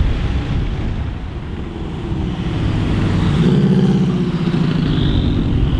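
Japanese performance car's engine accelerating hard, its pitch dropping briefly and then climbing as it gets louder toward the middle.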